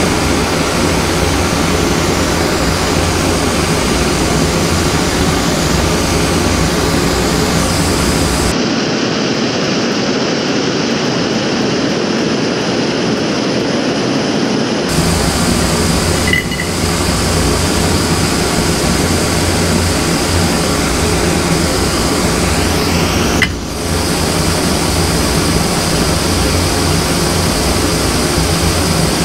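MSR PocketRocket 2 canister stove burner running at full flame under a kettle of water, a loud steady gas hiss. The sound changes abruptly for a few seconds about a third of the way in.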